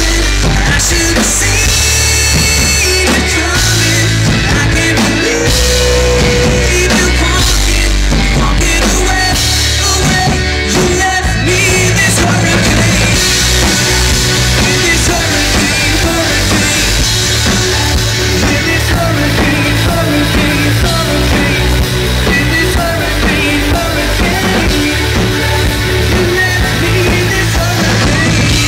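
Rock band playing live and loud, heard from near the stage: a male singer's lead vocal over electric guitar, bass and a drum kit.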